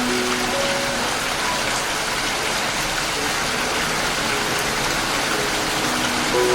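Steady hiss of heavy rain with soft musical notes over it. The notes thin out after the first second and return near the end.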